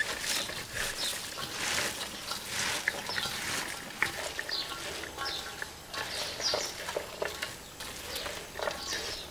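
Hands tossing and squeezing shredded cabbage and carrot in an enamel basin: repeated crisp rustling and crunching of the wet vegetable shreds.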